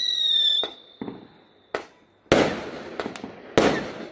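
Aerial fireworks: a high whistle, falling slowly in pitch, fades out about half a second in, then shells burst in a string of sharp bangs, the loudest two coming about a second apart near the end.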